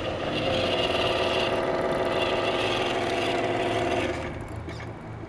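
Tamiya Hilux High-Lift radio-controlled truck driving past, its drive running with a steady engine-like hum and a higher whine over it, fading about four seconds in.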